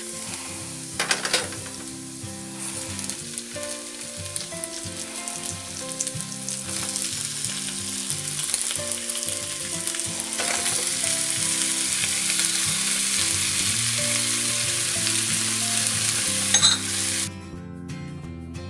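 Raw shrimp dropped into a frying pan of hot oil with sautéed onion and garlic, sizzling and growing louder as the pan fills. A brief clink comes near the end, and the sizzle then cuts off suddenly.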